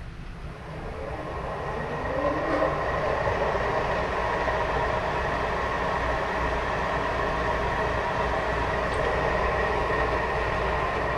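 Benchtop mill-drill spindle motor spinning up over the first couple of seconds, then running steadily with a whine.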